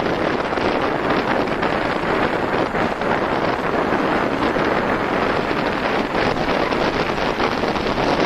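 Steady rush of wind buffeting the microphone while descending a mountain road at about 40 km/h, with no engine or other distinct sound standing out.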